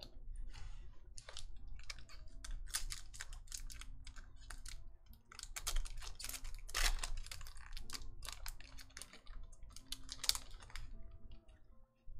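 Foil booster pack wrapper of a Flesh and Blood Welcome to Rathe trading card pack crinkling and tearing as it is ripped open by hand, a dense run of sharp crackles.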